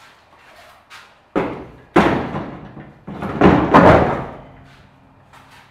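Heavy thuds and knocks as a golf cart battery is set down and pushed into a pickup truck's bed. Several separate knocks, the loudest cluster about three and a half to four seconds in.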